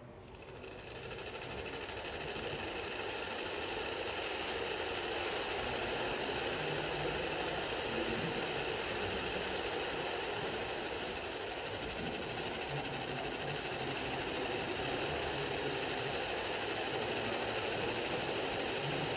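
Steady, dense mechanical noise with a fast, grainy rattle, like a machine running. It fades in over the first couple of seconds and then holds level.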